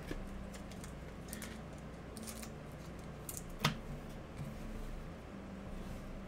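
Trading cards being handled: short, faint rustles and clicks of card stock, with one sharper click a little past halfway.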